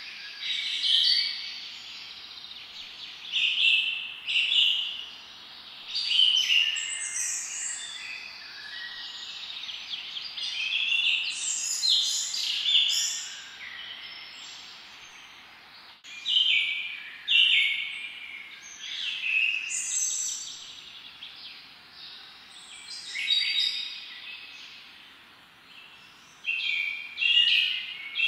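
Birds singing and chirping in repeated bursts of high phrases, with short lulls between them.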